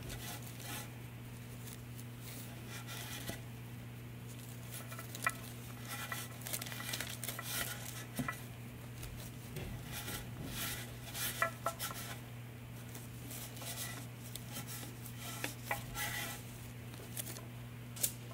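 Cloth rag rubbing wet paint off a ceramic bisque piece, with scattered light clicks and knocks as the ceramic is handled and shifted on the table, over a steady low hum.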